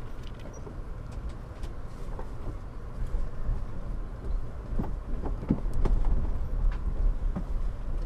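Amtrak passenger train heard from inside the coach, rolling along the track: a steady low rumble with scattered clicks and knocks, growing a little louder about three seconds in.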